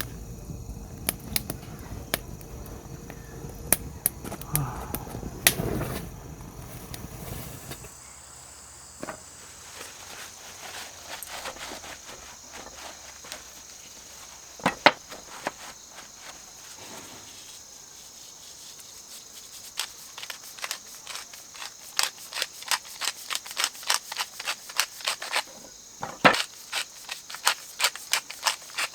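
Insects chirring steadily at a high pitch, with scattered sharp clicks and taps that come in quick runs near the end.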